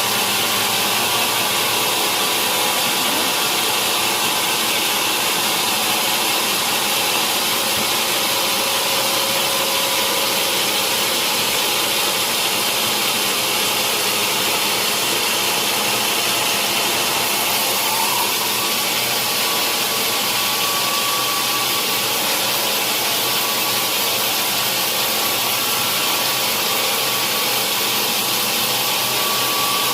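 Sawmill saw and machinery running steadily, an even, loud, high-pitched mechanical noise with no break.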